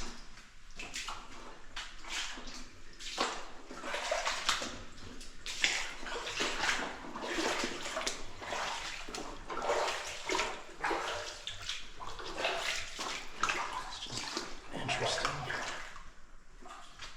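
Footsteps sloshing and splashing through shallow water in a flooded mine tunnel, an uneven run of wading steps.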